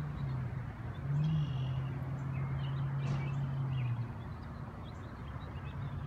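Low steady hum that steps up and back down in pitch about a second in and stops about four seconds in, with a few faint bird chirps over a soft outdoor background.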